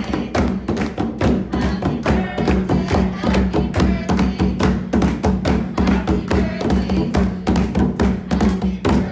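Two djembe hand drums played in a quick, steady rhythm, with hand clapping keeping time.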